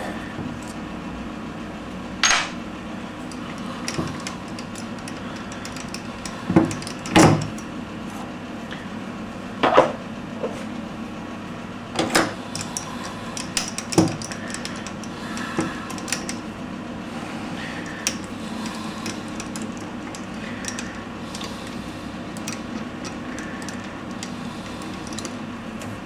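Metal clinks and knocks as lathe tooling in the tailstock is handled and changed by hand, with the loudest knocks in the first half, over a steady low hum.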